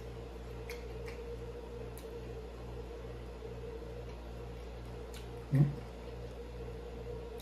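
A man chewing a mouthful of deep-fried seafood, with a few faint mouth clicks, over a steady low hum that pulses about twice a second. About five and a half seconds in comes one brief, louder vocal sound.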